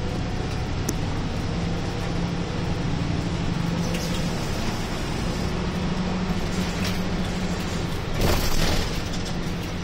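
Inside a moving route bus: the diesel engine's steady drone with road noise. A brief louder rushing noise comes about eight seconds in.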